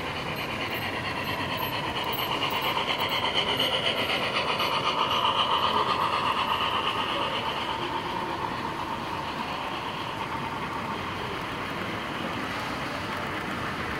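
Model steam locomotive and its freight cars running past on layout track, with a fast, even pulsing. It grows louder as the locomotive goes by about five seconds in, then settles as the cars roll past.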